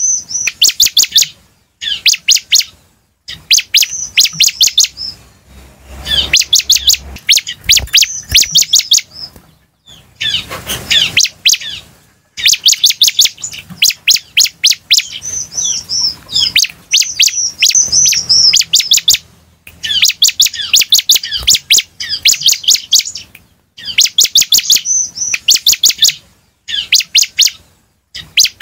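Bar-winged prinia (ciblek) singing: loud, repeated bursts of rapid, sharp chirping notes, each burst about a second long with short pauses between. A brief rushing noise comes about ten seconds in.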